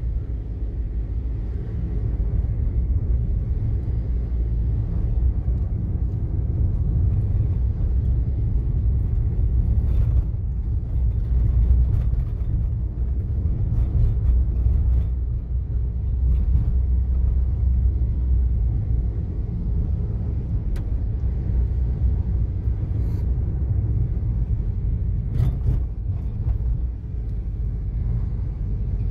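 A car driving along a road: a steady low rumble of engine and tyres, with a few faint, brief clicks and knocks.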